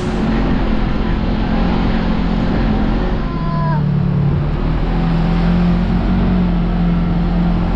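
Engine of a 2023 Kawasaki Teryx KRX 1000 side-by-side, a parallel-twin, running steadily as the machine drives along a rough trail. Road and chassis rumble lies under it, and the engine note dips and rises slightly around the middle.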